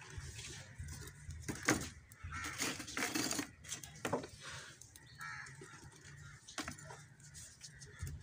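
Thin firewood sticks being laid on and knocking against a metal charcoal jiko as its kindling burns, giving irregular clicks and knocks.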